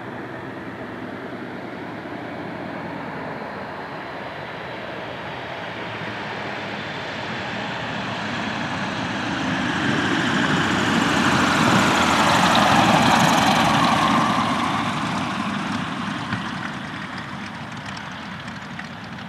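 Boeing-Stearman Model 75 biplane's radial engine running as the plane comes in to land and rolls past. It grows louder, is loudest about twelve seconds in, drops in pitch as it passes, then fades as it moves away.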